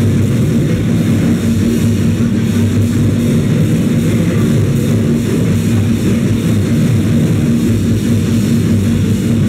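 A noisecore band playing live at full volume: a dense, unbroken wall of distorted guitar and bass over drums. A steady held low note comes in at the start.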